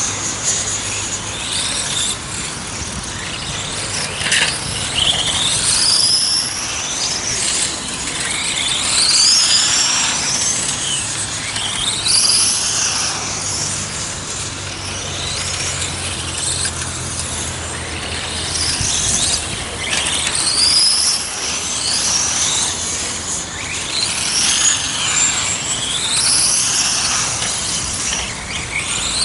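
Several 1:8 scale electric RC racing cars' motors whining at high pitch, the whine rising and falling over and over as the cars accelerate out of corners and brake into them.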